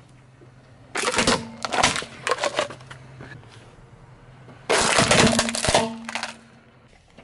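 Plastic toys cracking and breaking under a car tyre: a plastic vuvuzela, then a plastic toy chainsaw. There are two spells of crunching and snapping, one starting about a second in and a louder, denser one about two thirds of the way through.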